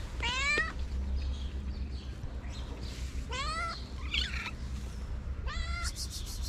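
A cat meowing, four short meows spread over several seconds, each rising in pitch.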